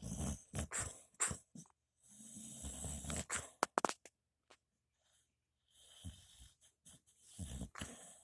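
Dog snoring: a run of rough, uneven breaths, the longest about two seconds. A few sharp clicks come about halfway through, followed by a gap of nearly two seconds before the breathing resumes.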